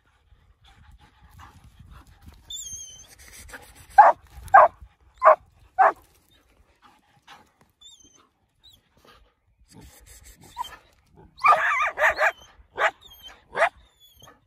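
Dogs barking: four loud barks about half a second apart around four to six seconds in, then a faster run of barks near the end.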